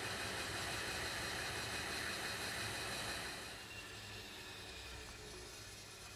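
Bandsaw resawing a solid mahogany board in half along a tall fence: a steady hiss of the blade cutting through the wood. About three and a half seconds in the cut ends and the sound drops to the quieter steady run of the saw.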